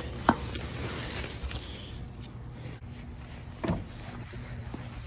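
Two sharp knocks, one just after the start and one about three seconds later, with scuffing and rustling as someone moves around a dumpster and walks off, over a steady low hum.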